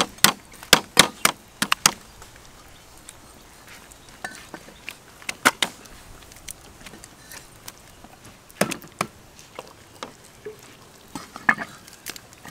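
Sharp knocks of a cleaver on a thick wooden chopping block as raw chicken breast is cut: about six in quick succession in the first two seconds, then a few single knocks further apart.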